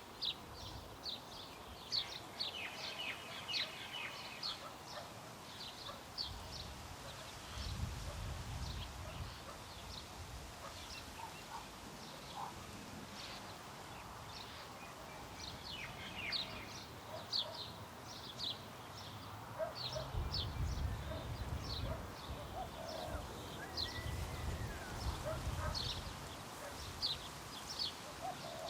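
Many small birds chirping in short, quick notes, over a light wind and the rumble of distant traffic. The low rumble swells twice, about a quarter of the way in and again past two-thirds.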